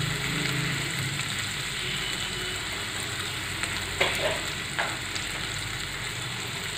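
Steamed potato cubes frying in mustard oil in a kadai: a steady sizzling hiss, with a couple of light clicks about four seconds in.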